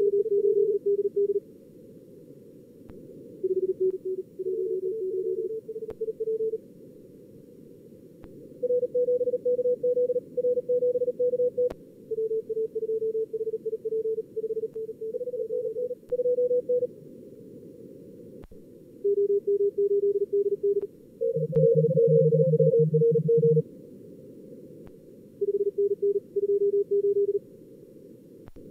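Fast Morse code (CW) from a contest simulator's callers, sent at about 38 words per minute on several pitches between roughly 400 and 550 Hz, sometimes overlapping, over a hiss of narrow-filtered receiver noise. A lower-pitched keyed signal joins for a couple of seconds past the middle.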